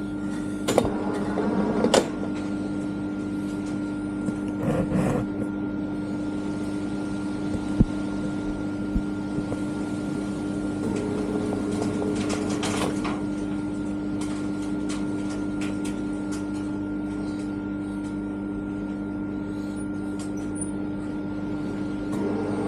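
Metal lathe running with a steady motor-and-gear hum, with scattered sharp clicks and knocks from the carriage and slide being worked, the loudest a few seconds in and around twelve seconds in.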